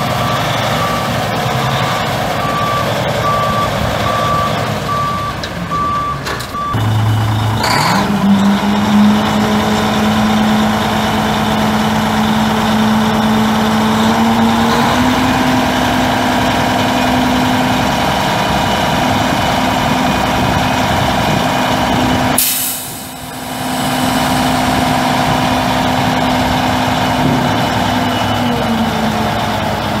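The Mack EM6-300 six-cylinder turbo diesel of a 1987 Mack RS686LS dump truck running, with its reverse alarm beeping steadily for the first several seconds. Then comes a short burst of air, and the engine speeds up and holds a higher steady speed. A sudden sharp hiss comes near the 23-second mark, and the engine eases down near the end.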